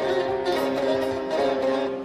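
Instrumental passage of a Turkish folk song, with plucked string instruments playing between the sung lines.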